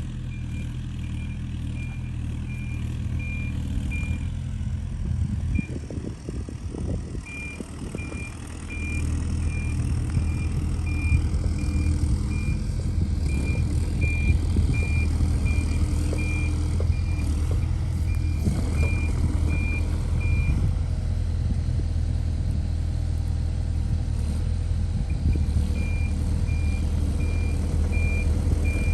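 Mini excavator's diesel engine running, with its travel alarm beeping about twice a second. The engine comes up louder about nine seconds in. The beeping pauses twice, and a few knocks sound in between.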